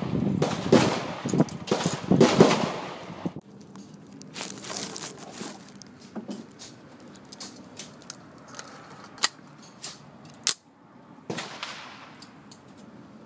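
AR-15 pistol with a muzzle brake fired in quick succession, about eight loud shots in three seconds, each with a ringing echo. Then scattered softer pops and clicks, with two sharper shots about ten and eleven seconds in.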